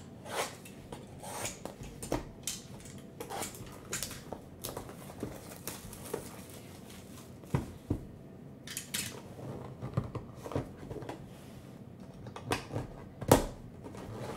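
Cellophane shrink wrap crinkling and a cardboard trading-card box being handled and opened by hand, with scattered taps and clicks. One sharper knock near the end.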